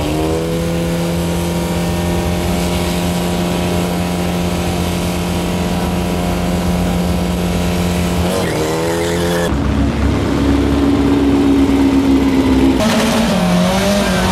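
Volkswagen drag cars' engines held at steady high revs on the start line for about eight seconds, then the revs drop and climb again. After an abrupt change in the note, near the end the engines rise and fall as the cars launch with wheelspin.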